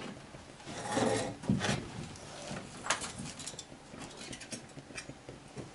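A spoon clicking and scraping against a bowl in quick irregular knocks as pork ribs are stirred through a sticky glaze, with a short muffled rustle about a second in.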